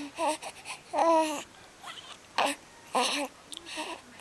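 Young baby cooing and babbling: a handful of short vocal sounds with quiet gaps between, the longest about a second in with a pitch that rises and falls.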